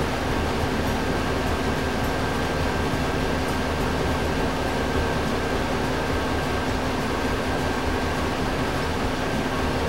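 Steady mechanical hum and whir of a running fan, with a faint constant high whine.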